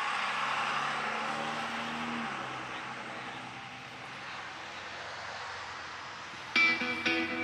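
A passing engine drone that is loudest near the start and fades away over the next few seconds. Electric guitar music starts near the end.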